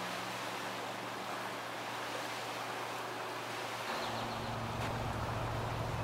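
Outdoor ambience: a steady rushing noise like wind, with a low hum underneath. About four seconds in, a deeper and louder low rumble joins it.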